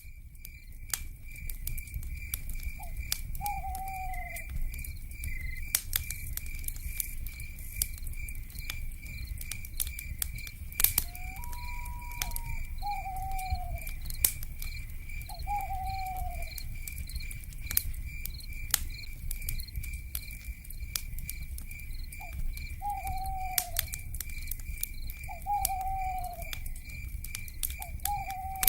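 Campfire crackling with scattered sharp pops over a low steady rumble, under a continuous high, evenly pulsing insect trill from cicadas. An owl gives short falling hoots about every two to three seconds, with one longer level note about twelve seconds in.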